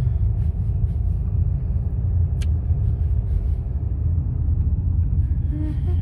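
Steady low rumble of a car's engine and tyres, heard from inside the cabin while driving, with one short sharp click about two and a half seconds in.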